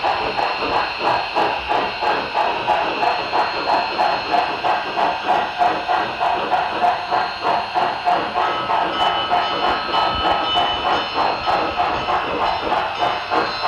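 HO scale model steam locomotive's LokSound sound decoder playing a steady, rhythmic steam exhaust chuff, about three beats a second, through its onboard speaker.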